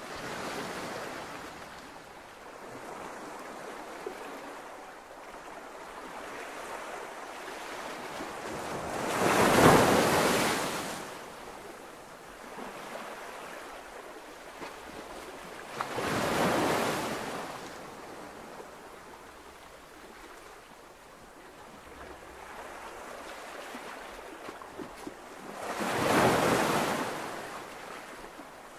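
Ocean waves breaking and washing on a shore, a steady rush that swells and fades, with three louder waves: the loudest about ten seconds in, and others around sixteen and twenty-six seconds.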